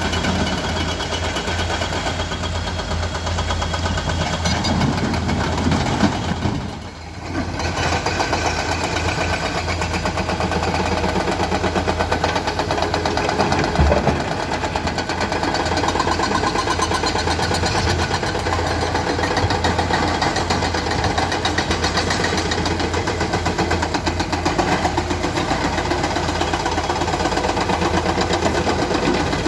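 Excavator's diesel engine running steadily with a dense mechanical rattle; the sound drops away for a moment about seven seconds in, then carries on.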